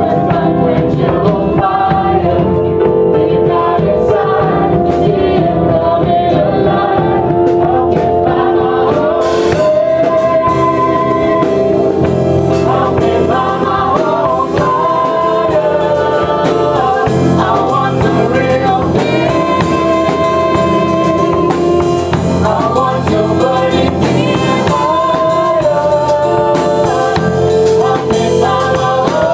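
Live gospel worship music: a group of voices singing together over a band. Sharp percussion hits become prominent about nine seconds in.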